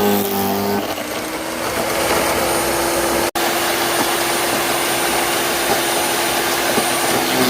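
Wen electric wood chipper running loud. Its motor pitch wavers under load in the first second, then settles into a steady whine over a rough rushing noise. The sound drops out for an instant about three seconds in.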